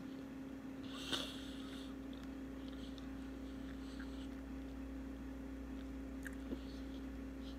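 Faint mouth-closed chewing, with a brief wet smacking noise about a second in and a few small clicks, over a steady low electrical hum.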